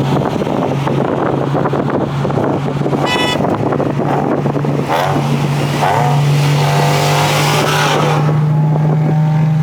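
Car engines running while cruising in a convoy: a loud steady low drone, with engine notes rising and falling as cars accelerate in the second half. A short toot comes about three seconds in.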